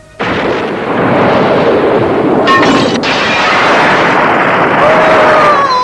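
Explosion sound effect in a dubbed cartoon: a sudden loud blast followed by a long, dense noisy rumble. A falling tone comes in near the end.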